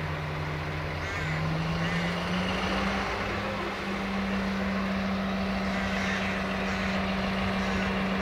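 Diesel-hydraulic shunting locomotive's engine working under load as it hauls a string of tank wagons. Its note rises about a second in, then holds steady and a little louder.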